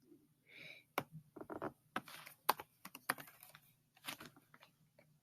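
Typing on a computer keyboard: a run of quick, irregular key clicks, fitting a hex colour code being entered into a custom colour box.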